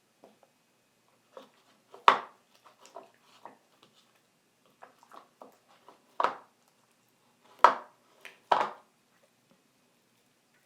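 Thickening glue-and-borax slime being worked by hand in a bowl: irregular soft clicks and knocks, with four sharper, louder ones spread through.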